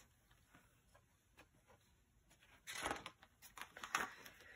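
Paper rustling as a page of a picture book is turned: a short rustle a little past halfway, then a few soft crinkles and taps, with very little sound before it.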